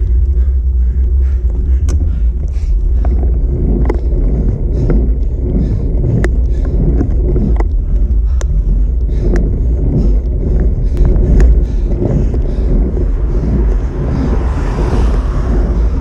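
Wind and road rumble on a bicycle's handlebar-mounted camera while riding on a paved street, with scattered clicks and rattles from the bike over bumps. Near the end a car passes, its tyre and engine noise swelling and fading.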